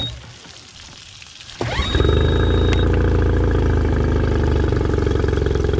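A 2020 Mercury 15 HP EFI four-stroke outboard is pull-started while running out of the water on flushing earmuffs. It catches about one and a half seconds in and settles straight into a steady idle, with a high beep lasting about a second as it fires.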